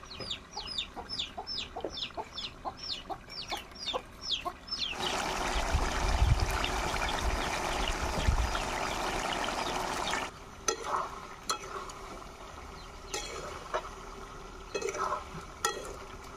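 A chicken's short, high, falling peeps, about two or three a second. About five seconds in, pork curry starts sizzling and frying in an aluminium pot over a wood fire, with a few low thumps; it cuts off abruptly about ten seconds in and leaves scattered faint clicks.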